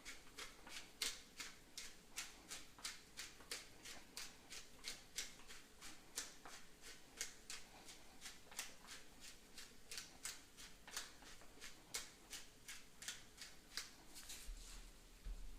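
Hand pepper mill being twisted, grinding peppercorns in a steady run of crunching clicks, about three or four a second, that stops shortly before the end.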